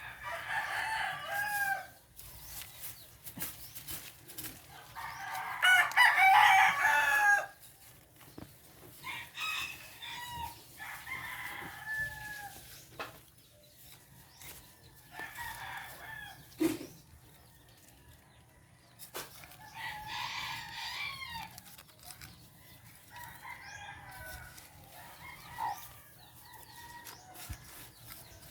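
Roosters crowing again and again, about six long calls one after another, the loudest about six seconds in. A single short knock comes partway through.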